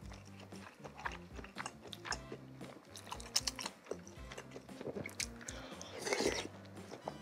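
Close-up chewing and biting of cilok, chewy tapioca balls in spicy broth, with many sharp mouth clicks and smacks and a longer wet noise about six seconds in. Soft background music with a steady beat runs underneath.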